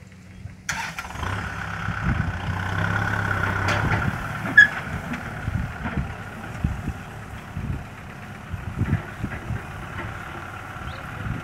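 Kubota tractor's diesel engine running as it pulls away towing a trailer loaded with rice sacks, with a steady whine over the engine note. A single sharp click or clank about four and a half seconds in.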